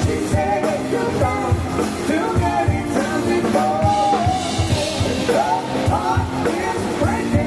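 Military band playing rock music, with electric keyboard and a drum kit beating about twice a second under a lead melody that slides in pitch.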